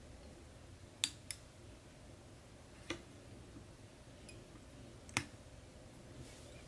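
A few small sharp clicks from hands winding thread off a bobbin onto a jig hook: two close together about a second in, one near three seconds, and the loudest about five seconds in, over a faint steady low hum.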